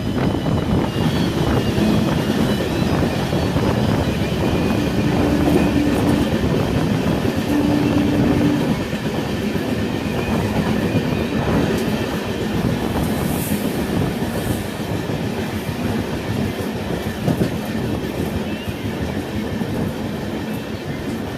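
Railway train running along the track, its wheels clattering over the rails in a steady loud rumble that eases slightly in the second half.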